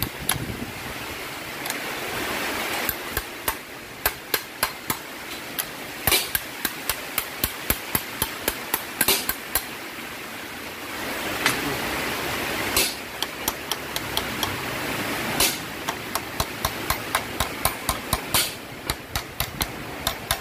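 Hammer blows on a metal pipe used as a drift, driving a timing-belt sprocket onto the crankshaft nose: sharp metallic taps in quick runs of several, with short pauses between runs.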